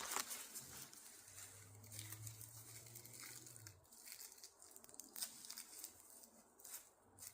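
Fabric rustling and crinkling as a fabric-covered scooter part is worked into place by hand, with small scraping clicks; a low hum runs for a couple of seconds in the middle.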